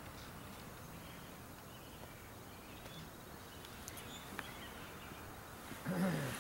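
Faint outdoor arena ambience with a few bird chirps. Near the end, a short louder low-pitched sound whose pitch falls over about half a second.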